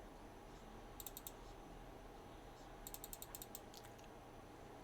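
Faint clicks from a computer mouse working through a date picker: three quick clicks about a second in, then a faster run of about ten ticks in the middle, like a scroll wheel turning through its notches.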